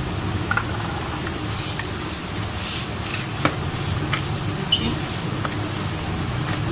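A hand kneading and pressing soft, oiled, risen yeast dough in a plastic bowl, giving sticky squelching and scattered short clicks and slaps against the bowl, over a steady low hum.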